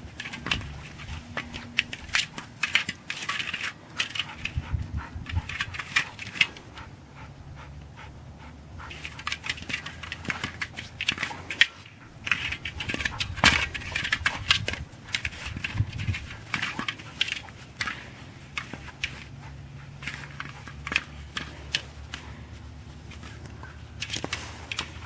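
Ice-crusted snow crunching and crackling under a dog's paws as it romps and pushes a ball about, in irregular busy spells broken by two calmer stretches.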